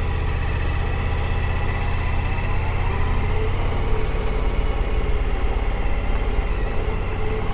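Suzuki V-Strom adventure motorcycle's V-twin engine running at a steady pitch while the bike is ridden.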